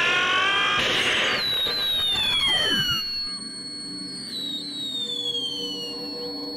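Action-film sound effects: a loud, noisy blast for the first second or so, then long falling whistles, with a low tone dropping away near the three-second mark and another falling whistle starting about four seconds in.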